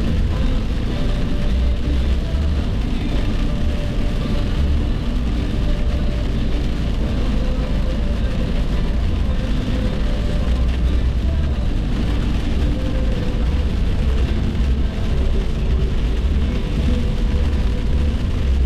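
Steady road and engine noise inside a car cruising on a highway: a constant low rumble with no distinct events.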